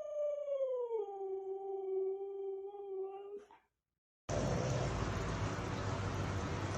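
A dog howling: one long drawn-out note that drops in pitch about a second in and ends about three and a half seconds in. After a short gap, a steady rumbling noise starts.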